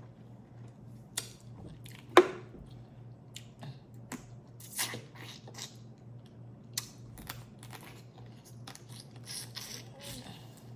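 Crawfish being peeled and eaten: scattered cracks and snaps of shell with wet squelching and chewing, the sharpest crack about two seconds in.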